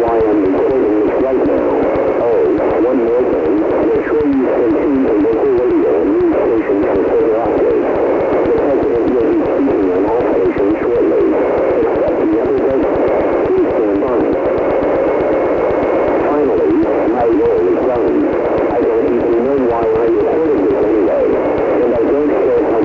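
Music heard as through a radio, thin and muffled, with a constant wavering and a layer of noise.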